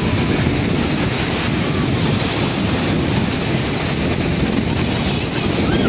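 Surf breaking and washing up the beach, with wind buffeting the microphone in a steady rumble.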